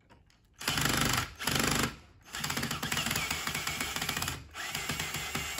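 Cordless drill running into a sofa bed's base frame: two short bursts about a second in, then a longer steady run with a fast clicking rattle, briefly dipping near the end.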